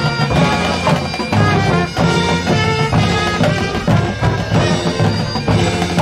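High school marching band playing at full volume: brass and woodwinds over drums and front-ensemble percussion, with strong regular accents.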